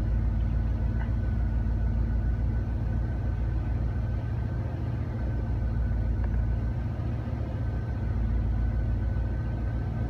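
Chrysler-group car engine running steadily on a held throttle, a low rumble with a faint steady high whine above it. It will not idle by itself; the scan tool reports an idle air control valve motor circuit fault (P0505), which the owner takes as the reason it won't idle properly.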